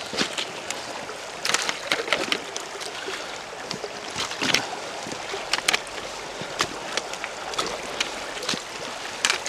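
A shallow burn running steadily over stones, full after heavy overnight rain, with irregular sharp splashes and knocks as hikers step through it with boots and trekking poles.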